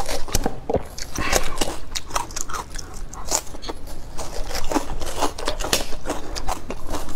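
Ripe watermelon flesh being chewed and dug out by hand close to a clip-on microphone: a dense, continuous run of crisp, wet crunches and crackles.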